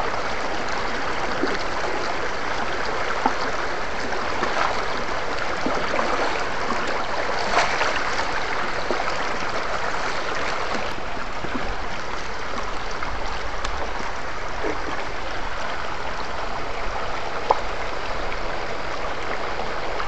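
Rocky stream running over stones: a steady rushing and gurgling of water, with a few brief knocks.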